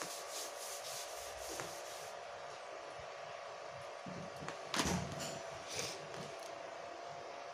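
Chalk being wiped off a blackboard in quick back-and-forth rubbing strokes, about two a second, stopping about two seconds in. About five seconds in there is a knock and rustle as the recording phone is handled, over a faint steady hum.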